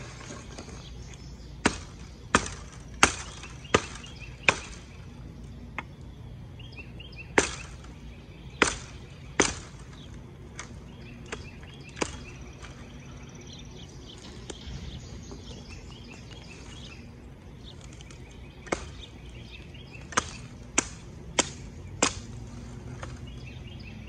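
Skachet hatchet blade on a green-wood stick handle chopping into branches: sharp chopping strikes, about seventeen in three runs with a long pause in the middle. The green-wood handle holds up, pretty sturdy.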